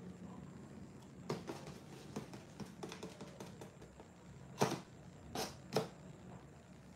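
Scattered light clicks and taps over a faint steady low hum, with three louder clicks close together a little past halfway.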